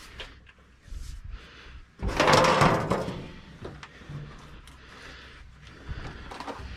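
Metal parts of a combine being handled: a loud scraping, sliding sound lasting about a second, starting about two seconds in, with lighter knocks and clunks around it.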